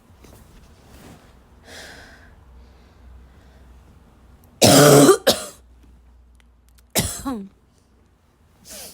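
A girl's dry, barking cough: a loud double cough about halfway through, then a single cough with a falling, voiced tail about two seconds later, and a faint short one at the end.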